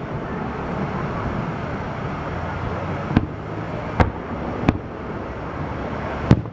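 Aerial fireworks shells bursting: four sharp bangs, the first about three seconds in and the rest over the next three seconds, over a steady background noise.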